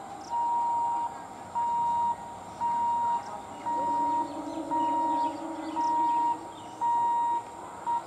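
Electronic warning beeper at a railway level crossing sounding a steady single high-pitched beep about once a second, seven times and starting an eighth, while the crossing barrier is up.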